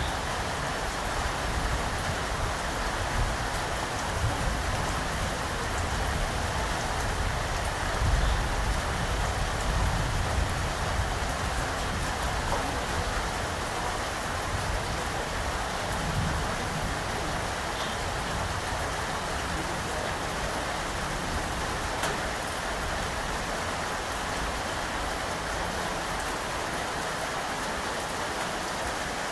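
Steady rain falling, an even hiss with a low rumble underneath that is stronger in the first half.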